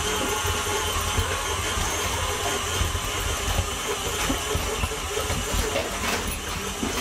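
KitchenAid stand mixer's motor running steadily as it kneads pizza dough in its steel bowl.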